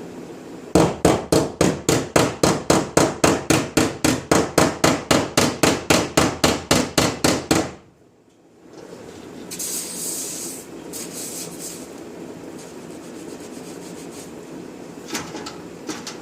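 Hammer tapping rapidly on a heated spot of the van's steel quarter panel, about four sharp strikes a second for some seven seconds, mushing the stretched metal back together in a heat-shrink. A short hiss follows about ten seconds in, and two light clicks near the end.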